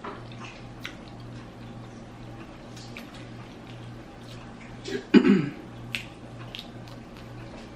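Close-up eating sounds: scattered small clicks and smacks, with one louder mouth or food sound about five seconds in, over a steady low hum.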